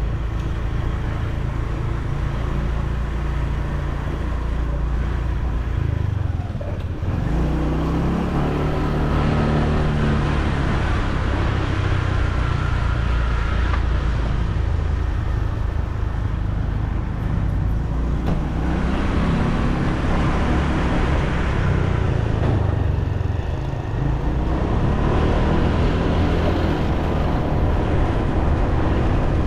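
Motor scooter engine running on the move, with road and traffic noise around it. The engine pitch rises and falls with the throttle, easing off briefly about six seconds in and again about twenty-three seconds in.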